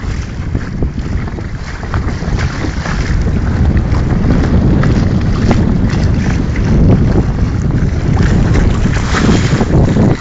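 Water rushing and splashing along the hull of a small sailboat under way in choppy water, with heavy wind buffeting on the microphone that gets louder about two seconds in.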